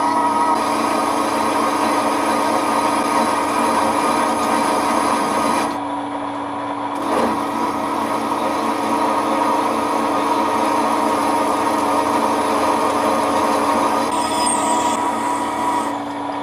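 Metal lathe running, its cutter grooving into the face of a spinning metal billet to cut out the centre: a steady machine whine under a constant cutting noise. It dips briefly about six seconds in.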